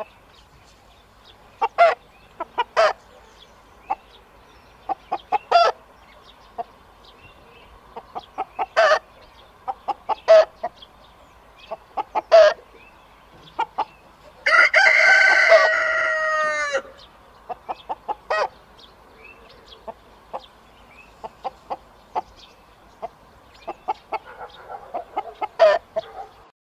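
Chickens clucking in short, scattered calls, and a rooster crowing once about halfway through: one long call of about two seconds that falls in pitch at the end.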